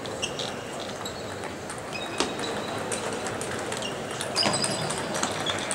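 Table tennis doubles rally: the ball clicks sharply and irregularly off bats and the table, with a few short high pings. Balls from play at other tables and a steady hall hubbub sound underneath.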